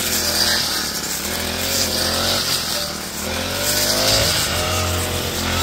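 Petrol brush cutter (grass-cutting machine) running steadily, its engine whine slowly rising and falling in pitch as it cuts.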